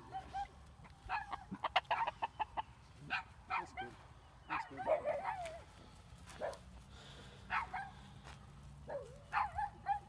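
Chickens clucking: a string of short, quick calls, then clusters of calls about every second.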